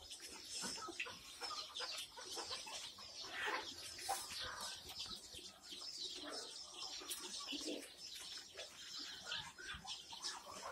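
A brood of week-old Kadaknath and desi chicks peeping, many short high calls overlapping continuously.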